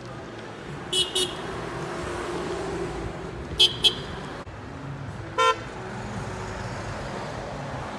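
Car horns from passing motorists tooting in greeting: a quick double toot about a second in, another double toot a few seconds later, and a single lower honk past halfway, over the steady noise of cars driving by.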